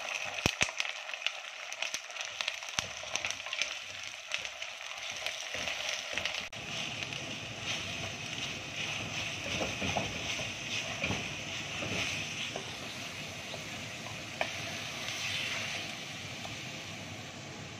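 Mutton keema sizzling in hot oil in a clay handi as it is fried and stirred with a wooden spoon, a steady hiss throughout. Sharp clicks of the spoon against the pot come in the first three seconds.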